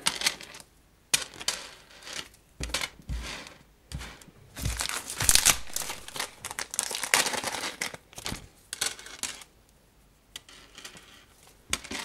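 Small plastic zip bags crinkling as stainless steel ball chains are pulled out and laid on a wooden table, the chains rattling; the handling comes in irregular bursts with short pauses.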